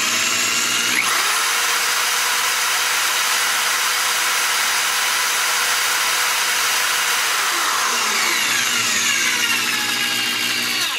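Electric hand drill, its trigger worked by a servo, running at high speed to wind solder onto a spool. Its whine rises as it spins up at the start, holds steady, then falls over the last few seconds as it slows and stops on reaching its set count.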